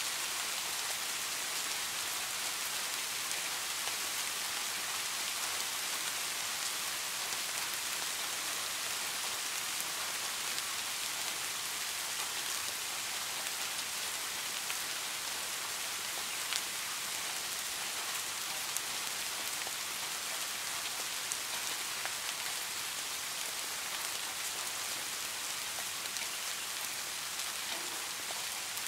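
Steady rainfall: an even hiss of rain, with now and then a sharper single drop tick.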